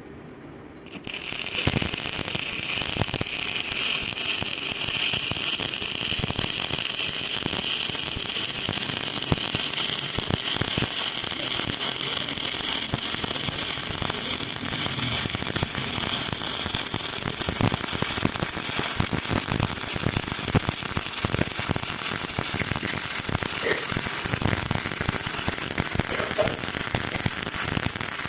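Stick-welding arc struck about a second in, then a steady, dense crackling and sizzling as the electrode burns.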